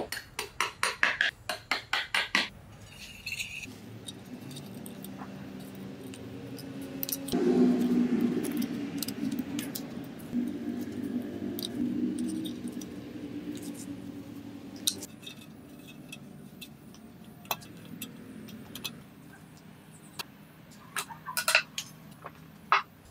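Thin steel rods and small wire stirrups clinking and tapping as a miniature rebar cage is assembled, with a quick run of taps at the start. Tie wire scrapes as it is twisted around the joints, the loudest stretch, in the middle. Scattered single metal clicks follow, with a few near the end.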